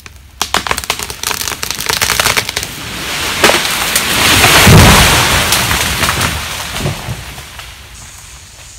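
A large hardwood tree being felled: a rapid run of sharp cracks as the wood fibres of the hinge tear while it tips, then the crash of the trunk and crown hitting the ground with a deep thud about five seconds in, branches and leaves crashing and settling after it.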